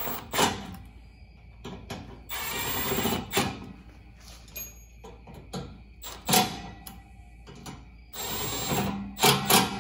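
Cordless Milwaukee Fuel driver running in short bursts of about a second, twice, to snug down 4 mm Allen-head bolts, with sharp knocks of the tool and bit between the runs.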